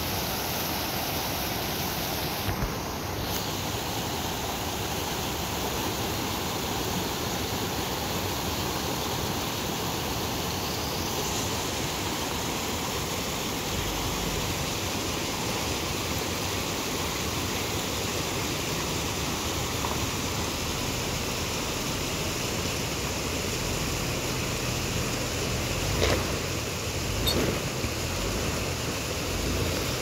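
Small rocky river rushing over rocks and little cascades, a steady even rush of water.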